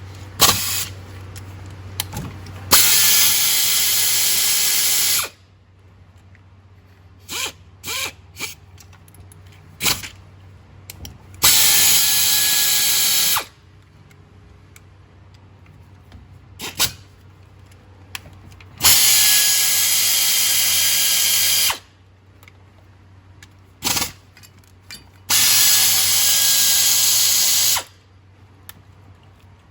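A handheld power tool runs in four bursts of two to three seconds each, with short metallic clicks and clinks of tools and parts between the bursts.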